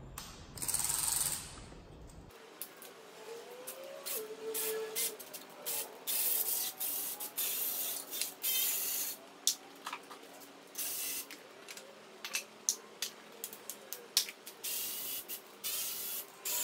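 Compressed-air tool on an engine being stripped, run in many short, irregular bursts of hiss, the first and longest about a second in.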